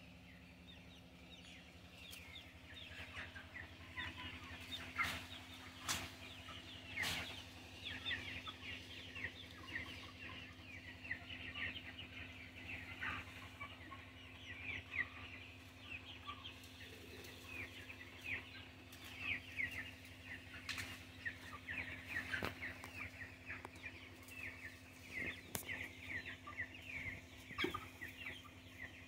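A flock of 41-day-old young chickens peeping and cheeping continuously, many short high calls overlapping, with a few sharp clicks now and then. A faint steady hum runs underneath.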